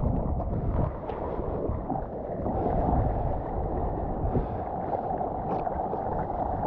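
Strong offshore wind buffeting the microphone over the wash and slosh of sea water, a steady rushing noise.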